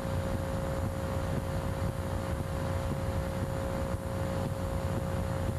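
Steady rush of air around a sailplane's cockpit in flight, heavy in the low end, with a constant high hum running underneath.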